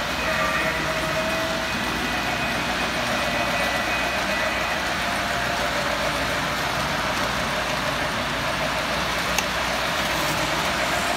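Steady running noise of three-rail model trains: wheels rolling on the track and small electric motors humming as a passenger train goes by, with one short click about nine seconds in.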